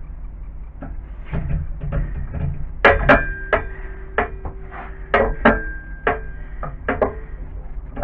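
Metal parts knocking and clinking together on a metal machine base plate as a metal rod is fitted through its blocks: about eight sharp knocks between about three and seven seconds in, several leaving a short metallic ring, over a steady low hum.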